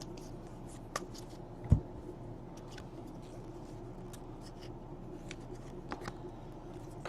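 Faint handling of trading cards: a few light ticks and rustles, with a soft thump a little under two seconds in, over a low steady room hum.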